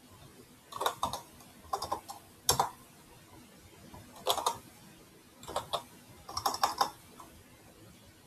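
Computer keyboard keys clicking in six short bursts of typing, a few keystrokes in each, with pauses between them.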